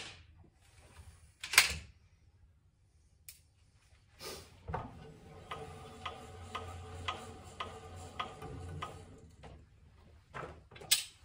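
A moderated PCP air rifle fires once about a second and a half in. Then a hand-turned pulley target retriever winds the target in for about five seconds: a steady whirr with about two ticks a second, ending in a couple of sharp clicks as the target arrives.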